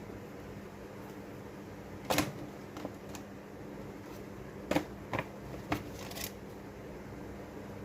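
A handful of short, light clicks and taps, about seven spread through the middle seconds, over a steady low hum and hiss.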